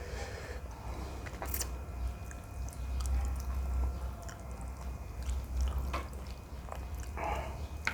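A person chewing a mouthful of jjajangmyeon noodles close to the microphone, with a few sharp clicks and a short wet mouth sound a little before the end.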